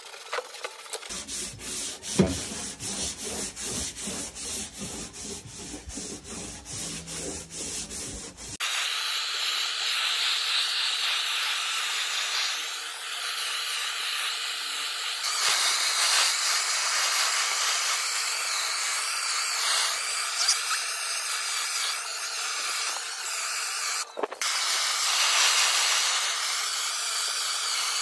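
Sandpaper on a hand block rubbing plywood in quick back-and-forth strokes. About eight seconds in, this gives way to a handheld gas blowtorch hissing steadily as its flame is swept over the plywood to scorch it.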